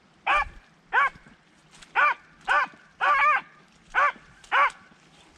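Beagle hounds baying on a rabbit's scent trail: about eight short, loud bays in quick succession, roughly two a second, each rising and falling in pitch.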